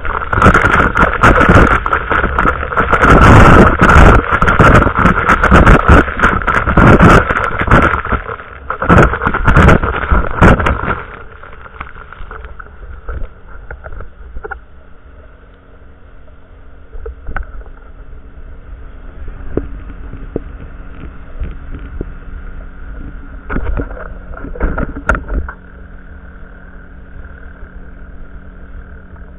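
Inflatable boat under way at speed: spray, wind on the microphone and the hull slapping through the chop over the motor. About eleven seconds in it drops to a much quieter, steady low motor hum.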